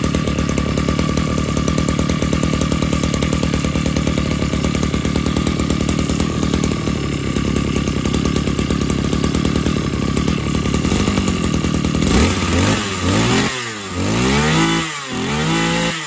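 Mitsubishi TU26 brush cutter's small two-stroke engine idling steadily after a test start, then revved up and down several times over the last few seconds before dropping back.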